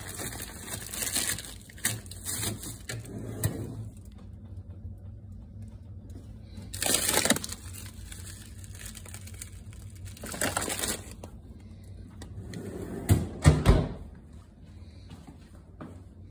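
Plastic bags of frozen food rustling and crinkling as they are moved around in a freezer drawer's wire basket, in several separate bursts. A few sharp knocks come about thirteen seconds in and are the loudest sounds.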